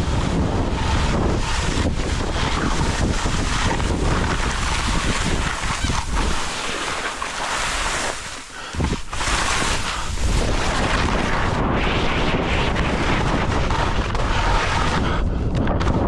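Wind buffeting the microphone of a skier moving fast downhill, mixed with skis hissing and scraping over soft, rutted spring corn snow. The rush drops away briefly about halfway through, then comes back at full strength.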